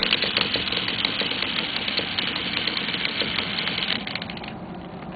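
Small nitro engine of a radio-controlled monster truck running hard: a dense, rattling buzz full of fine crackling ticks. It drops quieter about four seconds in.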